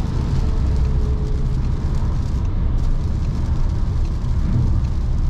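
Steady tyre and road noise heard from inside a Volkswagen Passat's cabin at motorway speed on a rain-soaked road, a deep rumble with a hiss of water spray and rain over it.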